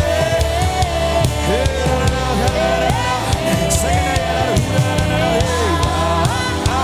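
Upbeat worship music: a sung melody over a steady drum beat and bass.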